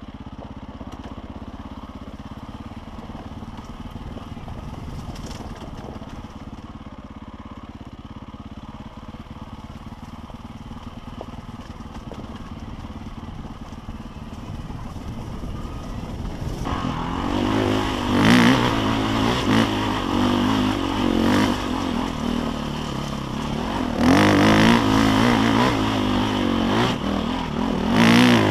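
KTM enduro dirt bike engine heard close up from a helmet-mounted camera. It runs steady and fairly quiet for about the first half, then gets louder, revving up and down in repeated throttle bursts.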